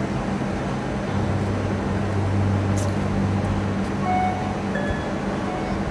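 Ambient music with low sustained drone notes that shift pitch about a second in, then short high bell-like notes from about four seconds in, over a steady background of outdoor noise.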